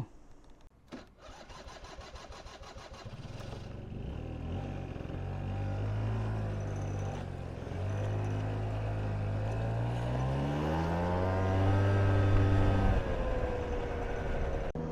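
A vehicle's engine pulling away and accelerating through the gears: after a few seconds of light rattling, its pitch climbs, drops back at a gear change about 8 seconds in, climbs again and drops at another shift near the end.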